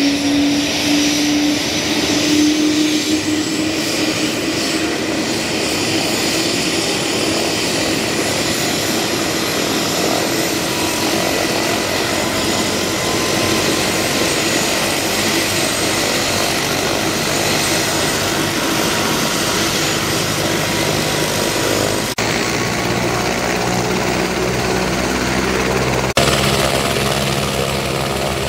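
Single-engine turbine helicopter running on the ground: a steady rush of engine and rotor noise with a high turbine whine that rises slightly over the first few seconds. Near the end the low, even engine note of a small propeller plane flying low past joins in.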